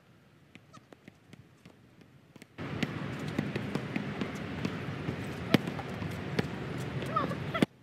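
Basketball bouncing on an outdoor hard court over a steady noisy hiss, with sharp knocks and one loud knock about halfway through. The court sound comes in suddenly about two and a half seconds in and cuts off suddenly just before the end; before it there are only faint clicks.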